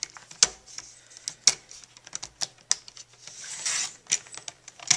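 Fiskars sliding paper trimmer working on cardstock: several sharp plastic clicks of the cutting head being set and pressed on the rail, and a scraping swish a little past three seconds in as the blade slides along through the paper.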